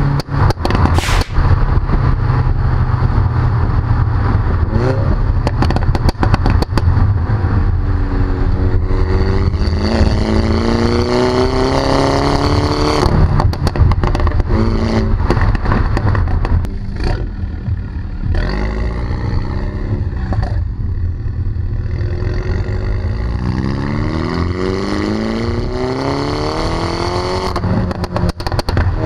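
Mini John Cooper Works F56 with a Pro Tuning aftermarket exhaust, its 2.0-litre turbocharged four-cylinder pulling hard on the road. The pitch climbs through each gear and drops back at the shifts. Sharp cracks and pops come from the tailpipes at several points. It is heard close to the twin centre tailpipes.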